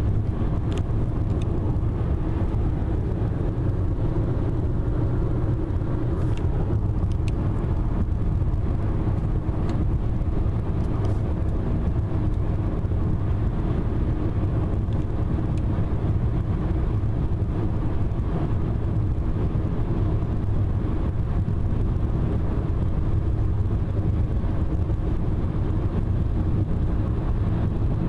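Steady engine and tyre noise of a car cruising at highway speed, heard from inside the cabin.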